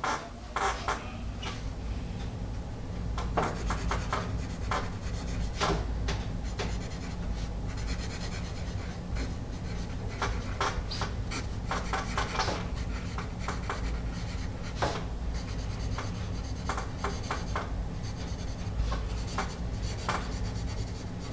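Paper Mate EverStrong #2/HB wood-cased pencil writing cursive on grid paper: irregular, short scratching strokes of the graphite core on the paper, over a steady low hum.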